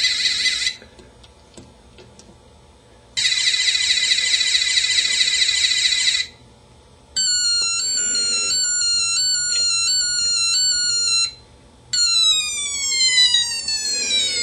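Electronic sound effects from a custom Transformers Warpath toy's sound module, played one after another through its small speaker: a rapid rattling buzz that stops within the first second, a pause, another rapid rattling buzz of about three seconds, then a repeating run of stepped falling tones, and near the end quick falling whistles repeated several times.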